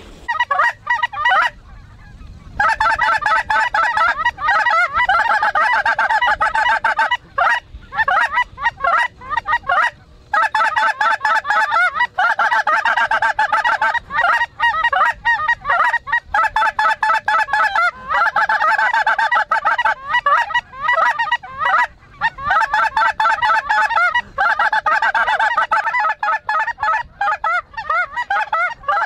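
A flock of snow geese calling: many overlapping honks in a dense, near-continuous chorus. It starts with a short burst and fills in fully after a couple of seconds.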